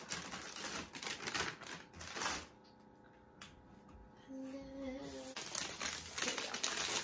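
Plastic candy bags crinkling and rustling as they are handled and swapped, in two stretches with a lull between. About halfway through, a woman hums one short note.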